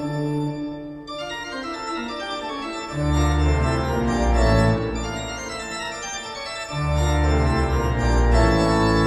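Background organ music: held chords, with deep bass notes and a louder passage coming in about three seconds in and again near seven seconds.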